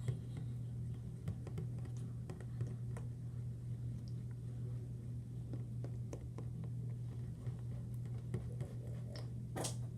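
Faint, irregular small clicks and sticky crackles of homemade slime being mixed by hand, over a steady low hum.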